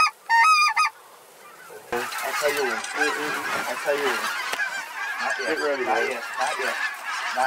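A large flock of geese calling, with white-fronted geese (specklebellies) among them. A few loud, rapid calls come in the first second, then a brief lull, then from about two seconds in a dense chorus of many overlapping honks and yelps as the flock comes in close.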